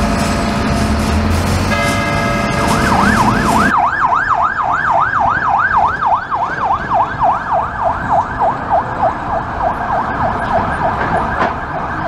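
Emergency vehicle siren in a fast yelp, sweeping up and down about three to four times a second and slowing a little, starting about three seconds in. Before it, a steady pitched tone with many overtones sounds, breaks off briefly about two seconds in, and then stops.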